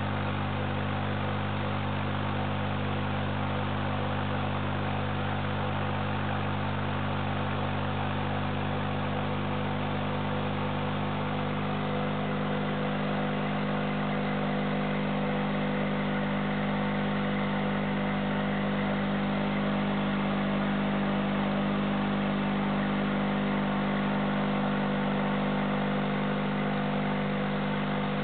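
Aquarium air pump humming steadily, with a constant hiss of bubbles streaming up from the air stones in the tank.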